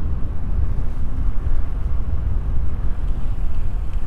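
Wind buffeting an action-camera microphone while riding an electric mountain bike: a steady, loud, low rumble.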